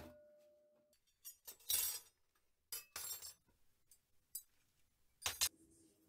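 Metal cutlery clinking and clattering against a steel workbench in several short bursts. There is a knock with a brief ringing tone at the start, and a sharp double clatter near the end.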